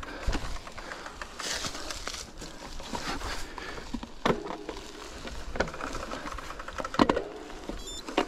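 Rockrider XC 900 mountain bike riding a forest singletrack: tyres rolling over dirt with a steady crunching noise, broken by rattles and sharp knocks as the bike goes over bumps, the loudest knock about seven seconds in.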